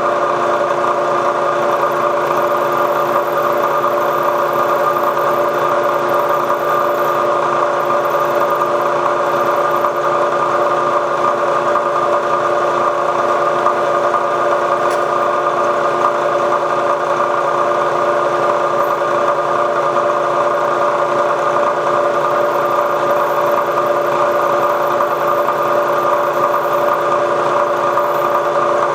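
Milling machine running steadily with an end mill cutting the extractor slot in a rifle bolt: an even mechanical hum made of several constant tones, with no pauses or changes.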